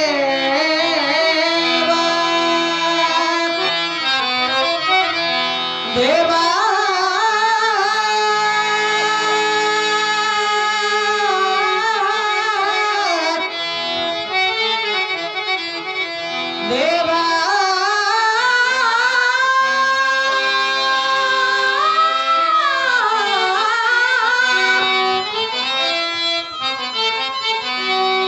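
Kannada devotional bhajan singing: a voice holding long, sliding melodic phrases over steady, held harmonium chords, with short gaps in the voice between phrases.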